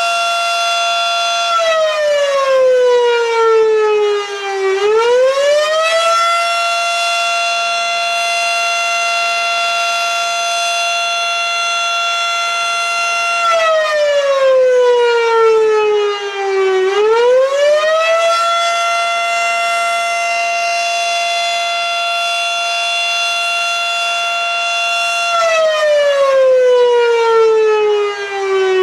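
Federal Signal Model 5 mechanical fire siren wailing. A steady high tone holds for several seconds, then sags in pitch for about three seconds and winds back up to full pitch; this happens three times over.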